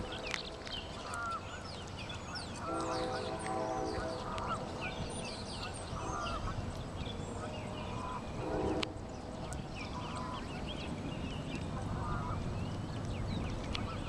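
Waterfowl honking, short nasal calls that come every few seconds, over a steady chorus of small songbirds chirping.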